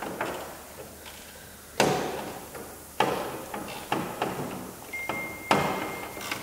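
A series of sharp knocks or bangs, a second or so apart, each ringing out briefly. A faint steady high tone sounds through the last second and a half.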